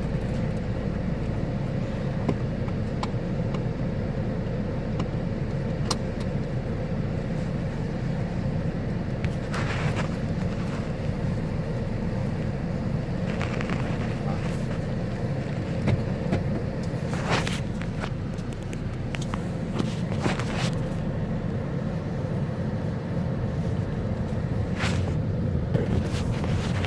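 A car running, heard from inside the cabin: a steady low rumble, with a few brief clicks and knocks now and then.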